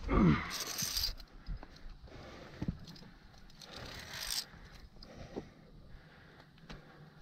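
Climbing gear and boots scraping and rubbing on rock, with scattered sharp metallic clicks. A short falling sound opens it, and a hissy rush comes about half a second in and again around four seconds in.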